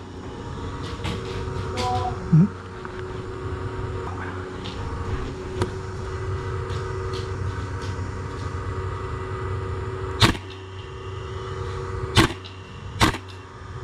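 Airsoft guns firing single shots, three sharp cracks in the last few seconds with fainter ones earlier, over a steady mechanical hum.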